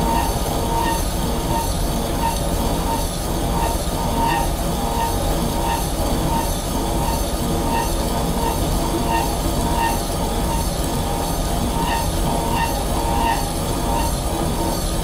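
Slitting saw on a horizontal milling machine cutting dry into steel, turning slowly under hand feed: a steady grinding with a faint squeal pulsing about twice a second. The spindle has been slowed to stop the saw resonating, and the cut runs smoothly.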